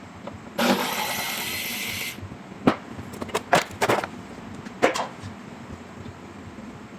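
A power or air tool runs in a short burst of about a second and a half, then several sharp metallic clinks and knocks of tools and parts being handled.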